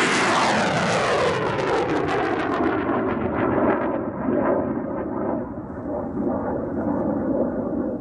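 Missile launch sound effect: a rocket motor's rushing roar whose pitch falls over the first few seconds as it moves away. The high hiss fades after about three seconds, leaving a steady lower rumble.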